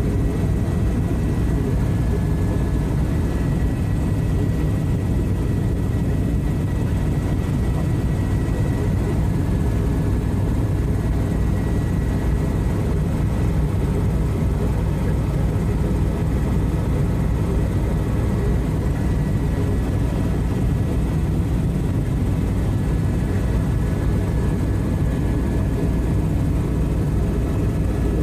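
Airbus EC130 tour helicopter in cruise, heard from inside the cabin: a steady, deep rotor and engine rumble with a faint high turbine whine over it.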